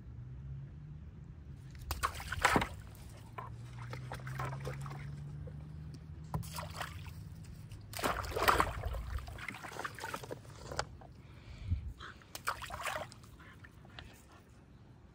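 Dogs splashing and sloshing water in a plastic kiddie pool and a stock tank as they dunk their heads for floating tennis balls, in irregular bursts; the loudest splashes come about two and a half seconds in and again around eight to nine seconds in. A low steady hum runs underneath.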